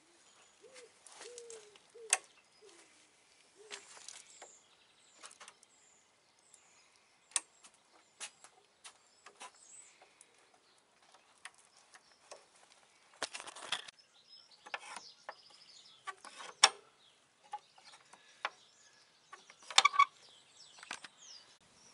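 Outdoor ambience: a pigeon cooing repeatedly for the first few seconds, with small birds chirping. Scattered sharp clicks and knocks come every few seconds, the loudest about two, seven, sixteen and twenty seconds in.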